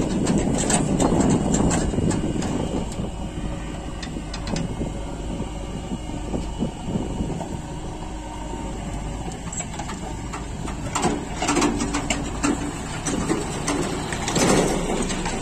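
Tractor engine running with a steady rumble, over clattering rattles and knocks, the sound of a tractor hauling a loaded trolley.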